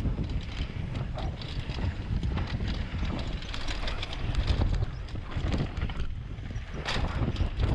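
Downhill mountain bike descending a dry dirt trail at speed: the tyres rumble over the dirt and the bike knocks and rattles over bumps and stones, with wind buffeting the microphone.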